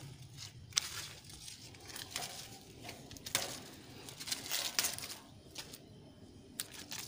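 Hand pruning shears cutting grapevine shoots, several sharp snips, with the vine's leaves rustling and crinkling as the cut growth is pulled away.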